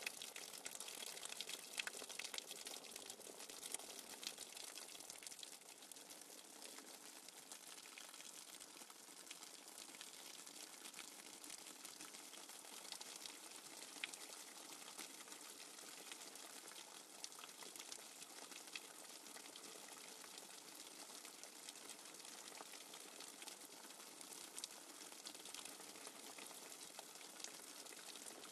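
Faint, steady nature-sounds background track of running water, a continuous hiss with fine crackling ticks.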